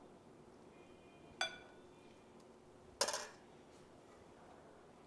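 A spoon clinking against dishes: a single ringing clink about a second and a half in, then a louder, short clatter about three seconds in.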